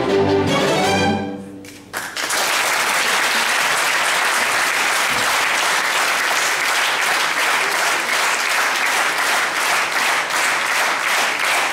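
String chamber orchestra playing the final chord of a piece, which dies away within the first two seconds. It is followed by steady audience applause for the rest of the time.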